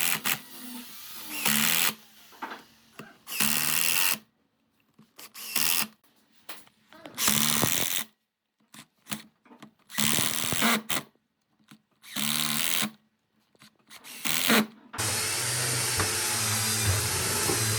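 Handheld power tool, such as a drill, run in short bursts of about a second each with silent gaps between. About three-quarters of the way through, a different motorised tool starts and runs steadily.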